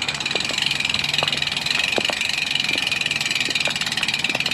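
Road bike's rear-hub freewheel ticking rapidly and steadily as the rider coasts without pedalling.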